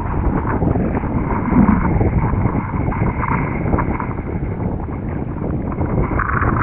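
Strong wind buffeting the microphone, mixed with the slosh of choppy lake water around the camera at the surface.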